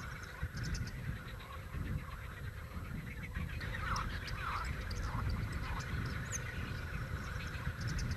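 Outdoor ambience: a steady low rumble with scattered bird calls, including a few short calls about four to five seconds in.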